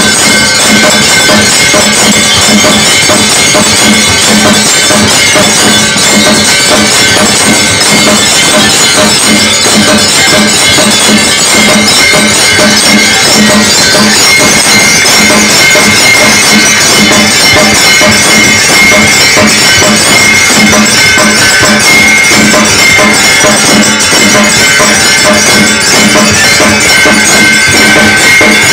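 Many hanging brass temple bells rung by hand all at once: a loud, dense clanging with no pause, their ringing tones overlapping.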